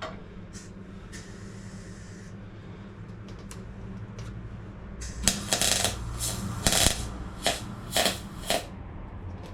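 Welder arc on the steel sill panels in a run of six or seven short tack-weld bursts, starting about five seconds in and spaced roughly half a second apart, over a steady low hum.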